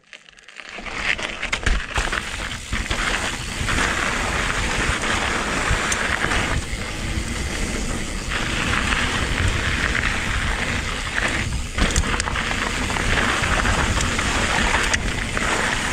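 Electric mountain bike tyres rolling fast over a loose gravel trail, giving a steady rush of crunching noise that builds within the first second, with a few sharp knocks from the bike over rough ground.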